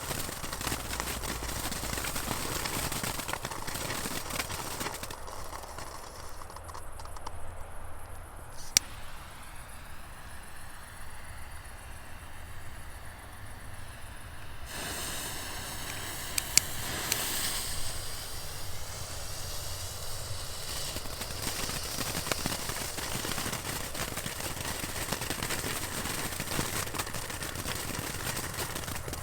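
Small consumer ground fireworks burning with a steady hiss and crackle, with a few sharp cracks around the middle.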